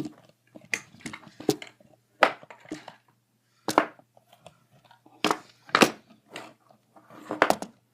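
About a dozen sharp knocks and clicks at uneven intervals, with quiet between them: handling noise as the camera is positioned and set up.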